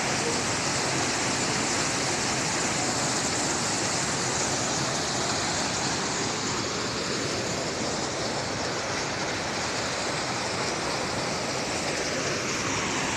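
Mountain stream cascading over boulders: a steady, loud rush of white water.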